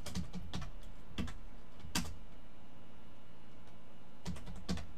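Computer keyboard keys pressed one at a time: about six separate keystrokes, with a pause of about two seconds between the fourth and fifth. The click about two seconds in is the loudest.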